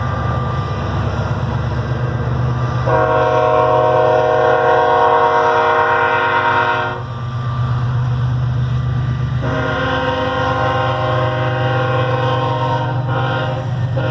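Train horn sounding a crossing signal: two long blasts of a multi-note chord, a short one, and another long blast beginning near the end, over the steady low rumble of a diesel locomotive engine.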